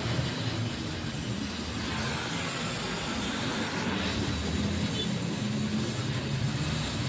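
Gas welding torch flame hissing steadily while a muffler baffle tube is welded, over a steady low motor-like hum.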